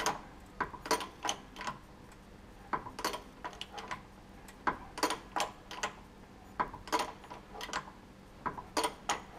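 A jack being worked to lift a Mercedes Sprinter's wheel, giving irregular mechanical clicks and ticks, a couple a second. No knock comes from the suspension: this side's shock absorber is silent as the wheel rises.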